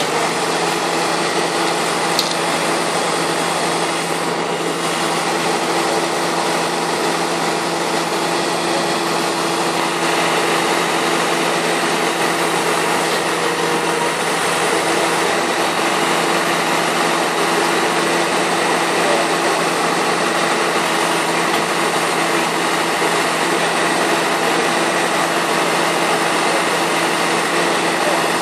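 Tractor hitched to a trailed grape harvester, running steadily at a standstill with a continuous engine hum and mechanical whir. It gets a little louder about ten seconds in.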